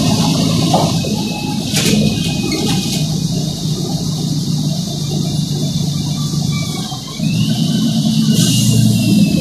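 A city bus's diesel engine running, heard from inside the passenger cabin as a steady low rumble with a hiss over it. There is a sharp click about two seconds in and a short hiss near the end. The engine gets louder about seven seconds in.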